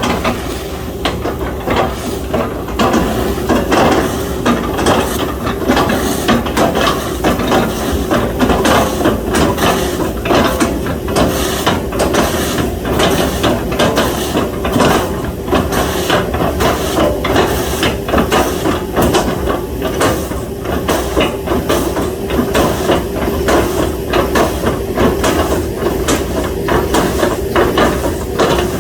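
Hydraulic excavator running steadily under load, with rapid repeated knocks and crunches as its bucket chops felled oil palm trunks into chips.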